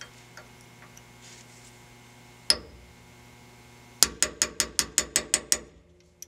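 Hammer tapping a steel pin punch to drive the ejector's retaining drift pin into a Uintah Precision UPR rifle bolt, metal striking metal: one tap about two and a half seconds in, then a quick run of about ten light taps.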